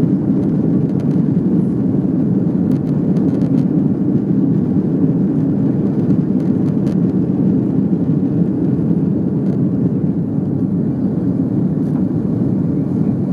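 Steady roar of an Airbus A330 climbing out after takeoff, heard inside the cabin from a seat over the wing: jet engine and airflow noise, deep and even throughout.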